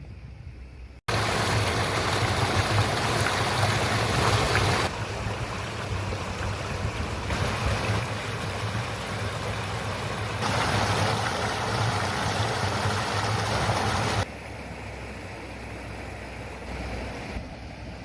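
Shallow stream flowing and babbling over stones, a steady rush of water that jumps abruptly in level several times, with a low wind rumble on the microphone.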